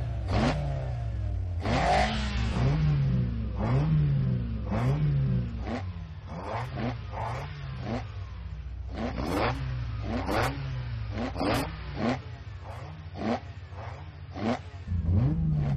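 Sports car engines revved in quick repeated blips, the note rising and falling about once a second, as the cars wait at the start of a race.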